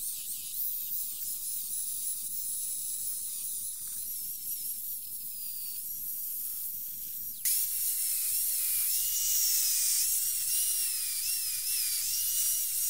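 Narrow-belt power file sanding a steel clamp part held in a vise: a high motor whine that wavers as the load changes, over a steady hiss of belt on metal. About seven and a half seconds in it cuts to a louder stretch with a lower whine.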